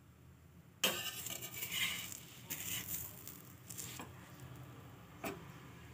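Slotted metal spatula scraping and knocking against an iron tawa as it works under a frying aloo paratha. The noise starts suddenly about a second in, with a few sharp clinks, eases off after about four seconds, and a single click comes near the end.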